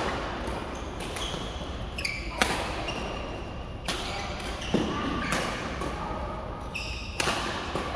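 Badminton doubles rally: rackets striking the shuttlecock in several sharp cracks a second or two apart, with brief shoe squeaks on the court mat between hits, echoing in a large hall.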